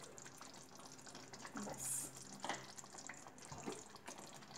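Faint sizzle of hot curry gravy in a nonstick pan, just off the heat, with soft scrapes and taps of a spatula stirring in fresh coriander leaves.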